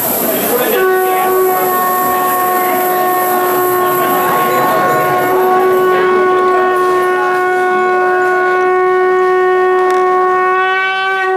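Kombu, the long C-shaped Kerala horns, sounding one long held note together, starting about a second in and growing brighter about halfway through.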